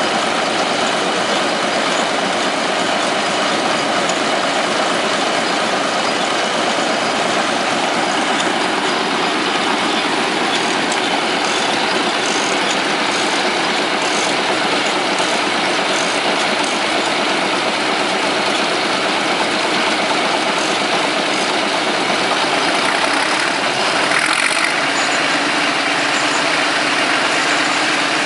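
Vintage Caterpillar D13000 six-cylinder diesel engine running steadily as the power unit for a sawmill, with a brief burst of added noise near the end.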